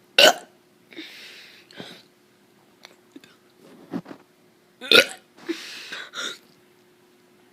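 A kid forcing burps: two short, clipped burps about five seconds apart, each followed by about a second of breathy air noise.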